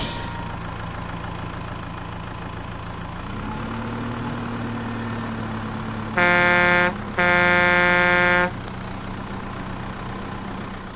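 Vehicle engine idling with a steady low hum that rises in pitch about three seconds in, then two horn blasts, a short one followed by a longer one; the engine hum carries on afterwards.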